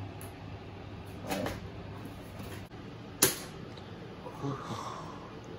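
Unboxing handling noises around a boxed RC monster truck: a light knock about a second in, and a single sharp click a little past three seconds.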